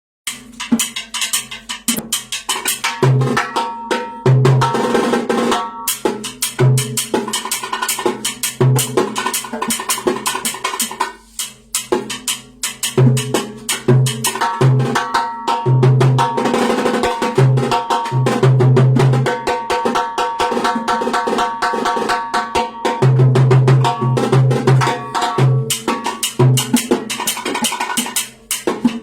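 Drums and percussion played in a fast, continuous groove, dense with quick snare-like strokes over recurring deep drum notes, with a short break about eleven seconds in.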